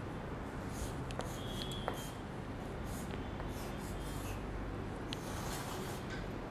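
Chalk scratching on a small handheld writing slate as figures are written, in short faint strokes with pauses between them and a couple of light taps.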